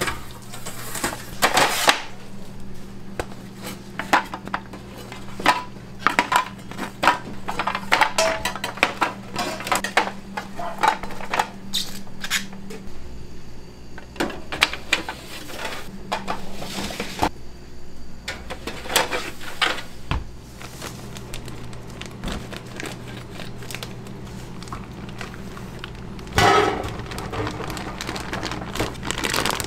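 Steel pizza pans and a metal oven peel clattering and scraping, with many sharp clinks and knocks, over a steady low hum of kitchen equipment.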